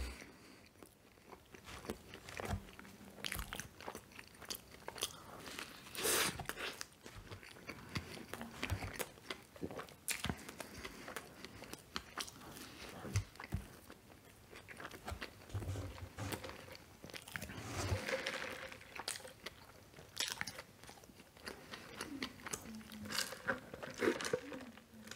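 A person chewing and biting into a McDouble cheeseburger close to the microphone: irregular mouth clicks and smacks, with a few louder bites.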